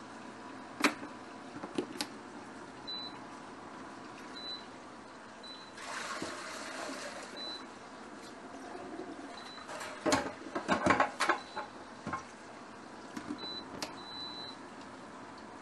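Kitchen work sounds: scattered knocks and clatter, with a short spell of running water about six seconds in and a quick run of clatter around ten seconds.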